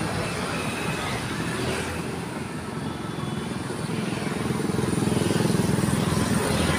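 Street traffic: motor scooters and cars passing, with a scooter's engine growing louder in the second half as it passes close.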